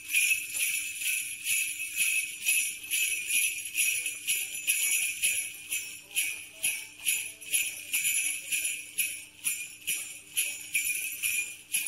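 Jingle bells shaken in a steady, even beat, about two strokes a second, with a bright ringing that has almost no low end.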